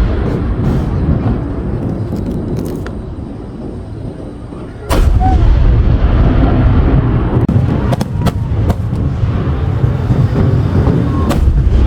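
Large aerial fireworks bursting: a continuous heavy booming that fades a little, then a sudden loud burst about five seconds in, followed by sharp crackling reports.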